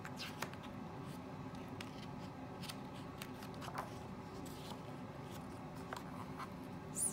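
Paperback picture book being opened and its page turned by hand: scattered soft paper rustles and light taps, over a faint steady room hum.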